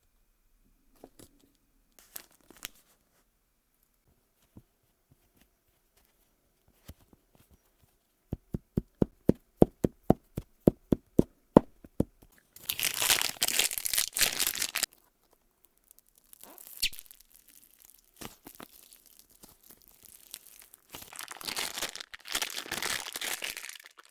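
Handling of gacha-capsule toy packaging: a few scattered clicks, then a quick run of even plastic taps about four or five a second, then two long stretches of plastic wrapping being torn open and crinkled.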